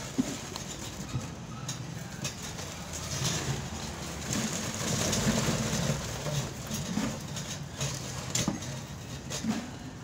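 Construction-site background noise: a steady low machine hum, louder around the middle, with a few sharp knocks and clicks.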